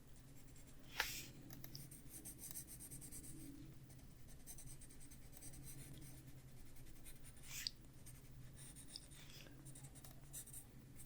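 Faint scratching of a Prismacolor colored pencil stroking over paper, blending one layer of colour into another, with a light tap about a second in and another later.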